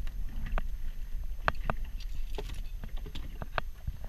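Irregular light knocks and taps against a small open boat, about six in all, as a handline is hauled in hand over hand and a cutlassfish is swung aboard. A low steady rumble runs underneath.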